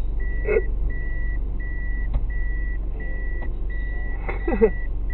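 A vehicle's reversing warning beeps repeatedly, one high, even-pitched tone about every 0.7 seconds, over the low hum of an idling engine. A short voice is heard about half a second in and again about four seconds in.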